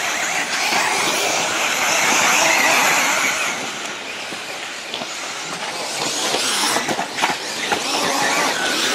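Several 1/10-scale electric four-wheel-drive off-road RC buggies racing on dirt: high electric motor and drivetrain whines rising and falling as they accelerate and brake, over a steady hiss, with a few sharp clicks about seven seconds in.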